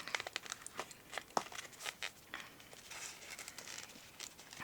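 Cupcake wrapper crinkling and crackling softly in a series of small, irregular crackles as it is handled and peeled away.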